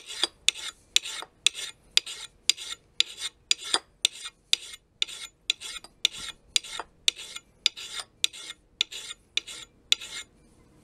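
Axe blade being honed on an oiled sharpening stone in one direction, short steel-on-stone scraping strokes about two to three a second that stop near the end. It is the honing stage after filing, taking off the wire edge.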